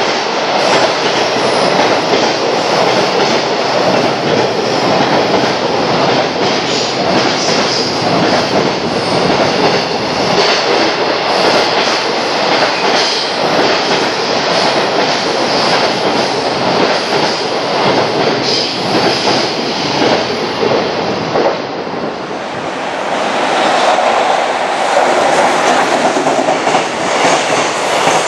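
Freight train container wagons rushing past at speed, with a rapid, irregular clickety-clack of wheels over the rail joints. About 22 seconds in, the sound dips briefly. It picks up again as a second container train passes in the same way.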